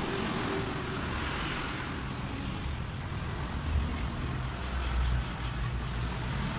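Steady low rumble of motor-vehicle noise in the background. A hiss swells and fades in the first two seconds, and a few faint clicks come near the end.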